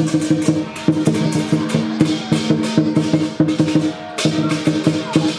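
Vietnamese lion dance percussion: a drum beaten in a fast, driving rhythm with cymbals clashing several times a second over a low ringing tone.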